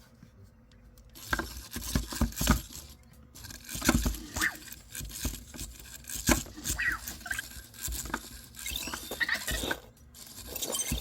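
EMO desktop pet robot moving about, with many small clicks and taps from its motors and feet, starting about a second in, mixed with a few short high chirps of its electronic voice.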